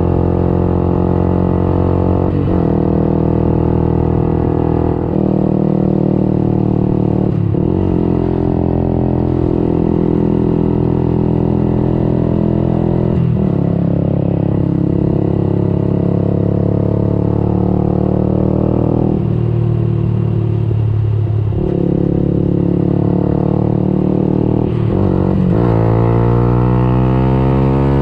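Yamaha YZF-R125's single-cylinder four-stroke engine through a Radical Racing exhaust with the dB-killer removed, ridden hard at high revs. The note breaks briefly every few seconds as gears change, drops off about twenty seconds in, then climbs in pitch again near the end.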